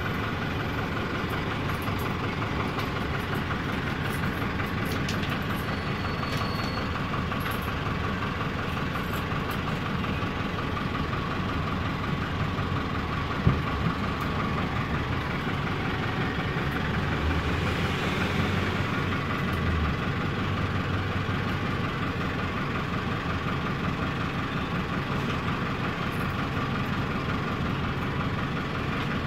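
Otokar M-2000 minibus's air-cooled Deutz F4L912 four-cylinder diesel running with a steady, noisy drone, heard from inside the passenger cabin. A single sharp knock is heard about halfway through.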